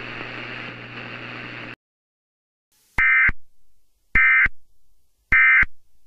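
The hissy, humming static bed of an Emergency Alert System broadcast cuts off abruptly just under two seconds in. After a second of silence come three short, loud bursts of screechy EAS data tones, about a second apart: the SAME end-of-message (NNNN) signal that closes an alert.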